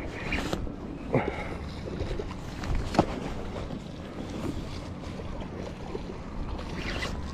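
A cast with a Penn Pursuit spinning rod and reel: a quick swish about a second in, then a sharp click about three seconds in as the bail closes. Steady wind noise on the microphone throughout.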